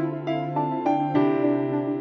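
Instrumental intro music: a melody of notes, about three a second, over a held low note.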